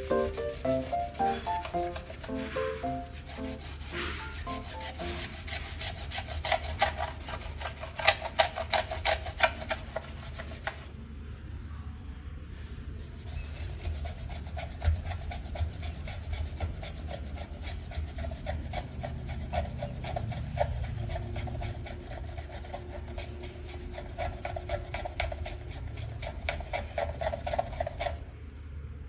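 A cloth rubbing fast back and forth on a stainless steel gas-stove burner plate, scrubbing off a stain. The strokes stop for about two seconds partway through, then carry on.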